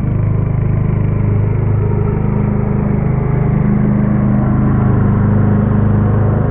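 Riding lawn mower engine running steadily while mowing, growing slightly louder partway through.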